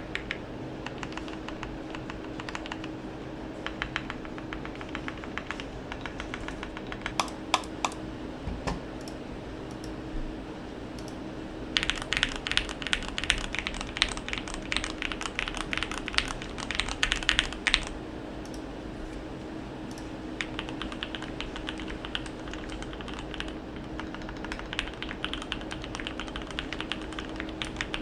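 Typing on a modded Keychron Q1 mechanical keyboard with lubed Gateron Milky Yellow linear switches, a steady stream of keystrokes. The typing gets louder and faster in a stretch about halfway through, then eases back.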